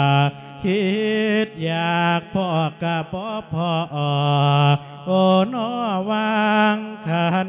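A Thai Buddhist monk sings a thet lae, the melodic Isan-style sung sermon, into a microphone. He holds long notes that bend and waver, in phrases broken by short pauses for breath.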